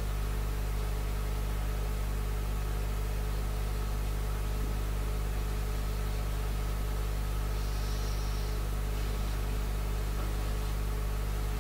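Steady low electrical hum with a faint even hiss from the microphone and sound system, unchanging throughout.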